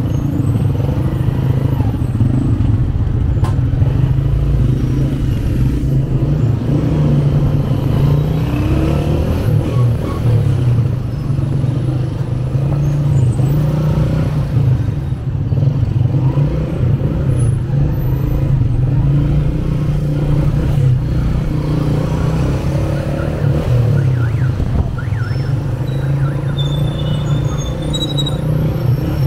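Motorcycle engine running steadily, heard from the pillion seat, over the noise of surrounding car traffic.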